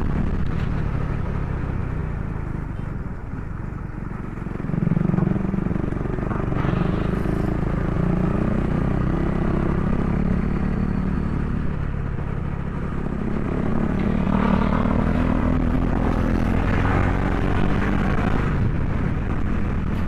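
KTM RC 390's single-cylinder engine running on the move, heard from the rider's seat. It eases off, then pulls harder about five seconds in, slackens again a little past halfway and picks up once more.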